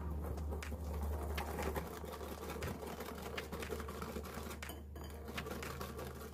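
Wire whisk beating a thin liquid mixture in a glass bowl, its metal tines clicking fast and unevenly against the glass.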